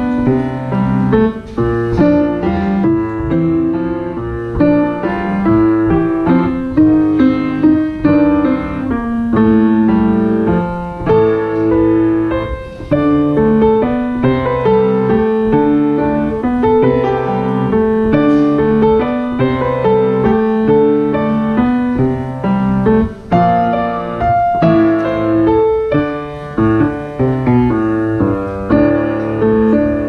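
Acoustic grand piano played solo: a steady stream of notes and chords, with a few brief breaks between phrases.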